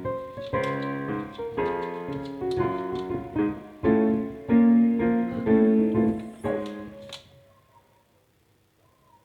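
Piano-sounding keyboard playing a slow series of held chords, changing about once a second, which stops about seven seconds in and rings away.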